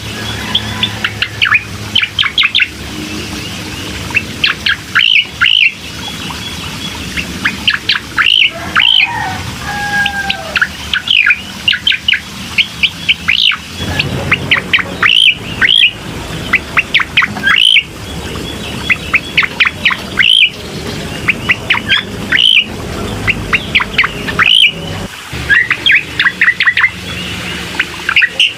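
Recorded song of a cucak koreng, played as a lure to start a quiet bird singing: quick clusters of sharp, falling chirps repeated every second or two, with a couple of lower whistles partway through, over a steady background hiss.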